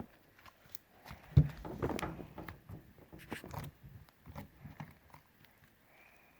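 Homemade glitter slime squished and pressed by hand, making short, irregular clicks and crackles, the loudest about one and a half seconds in.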